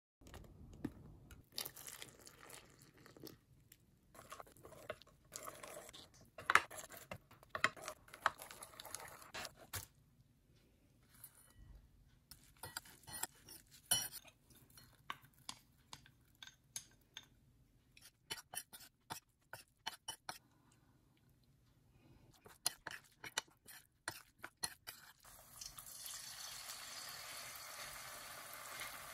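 A metal spoon clinking and scraping against a bowl in irregular taps while shredded potato, cheese and batter are stirred together. About 25 s in, a steady sizzle of hot oil takes over as spoonfuls of the potato mixture fry in a pan.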